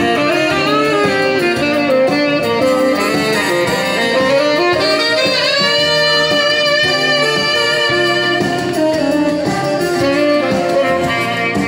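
Tenor saxophone with a Barkley MS8 mouthpiece and a Rico Royal reed, played through a microphone during a sound check. It plays a melodic phrase of held notes, with a pitch bend about halfway through.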